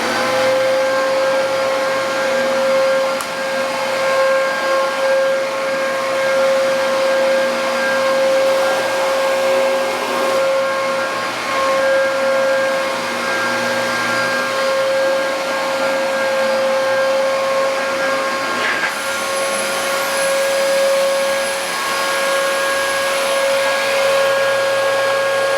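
Dyson DC33 bagless upright vacuum cleaner running, with a steady high motor whine over the rush of air.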